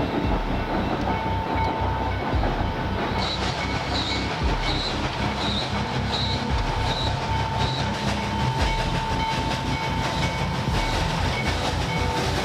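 Steam train running along the track, its wheels clattering over the rails in a dense run of knocks, with a thin steady whine over the noise.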